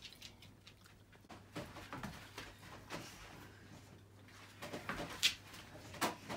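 A dog playing tug-of-war with a toy: irregular scuffles and knocks, the sharpest just after five seconds and another about a second later.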